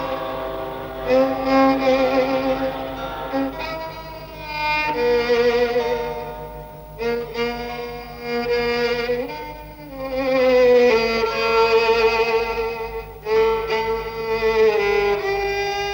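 Film score music: a slow, wistful violin melody of long notes with vibrato, swelling and fading.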